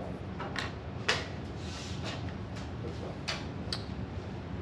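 Drawing on paper: about six short, sharp strokes a second or so apart, over a steady low hum.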